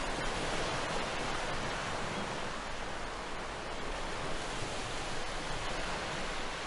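Steady, even rush of wind and sea noise over open water, with no distinct events.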